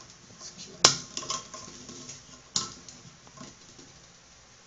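Pliers clicking and knocking against sink drain fittings while a slip nut on the drain extension is tightened: two sharp clacks, one about a second in and one a little past the middle, with lighter ticks between.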